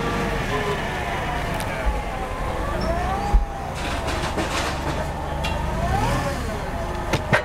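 Yale propane forklift's engine running as it drives with a loaded pallet: a steady low rumble with a wavering higher tone rising and falling over it. Two sharp knocks come through, about three seconds in and near the end.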